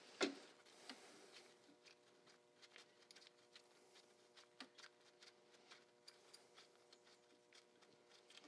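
Faint, irregular small clicks and light taps of gloved hands working an alternator loose from its mounting, with one sharper click about a quarter second in, over a faint steady hum.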